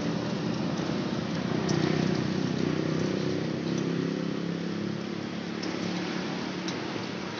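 A motor vehicle engine running nearby, strongest in the first few seconds and fading toward the end, with a few faint clicks over it.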